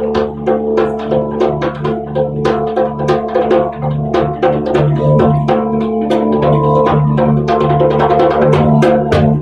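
Live instrumental music: a didgeridoo's steady low drone, pulsing rhythmically, under quick, frequent hand-percussion strikes.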